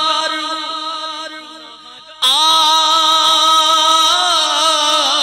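Male voice singing a naat in long melismatic phrases. A held note fades over the first two seconds, then a loud new phrase with wavering vibrato begins.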